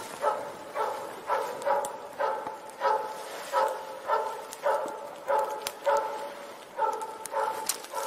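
A moose-hunting dog barking steadily, about two barks a second. This is the rhythmic bay (ståndskall) of a loose hunting dog holding a standing moose at bay.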